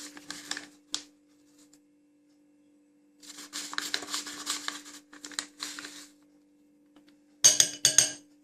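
Spoon scraping and stirring in a small saucepan of marinade, then two loud sharp knocks of the spoon against the pan near the end, over a steady hum.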